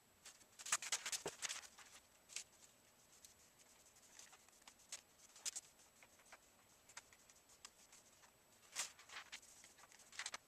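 Faint scratchy rustling of a paper towel wiping a plastic garage-door window, in short scattered strokes, busiest about a second in and again near the end.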